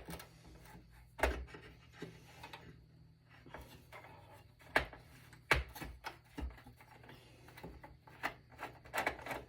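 Scattered clicks and knocks with faint rubbing: a screwdriver and hands working inside a desktop PC's metal case, loosening the last screws that hold the motherboard.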